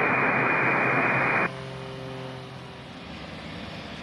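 Air traffic control radio hiss: an open-mic static burst lasting about a second and a half that cuts off sharply, leaving a faint hum and low background noise.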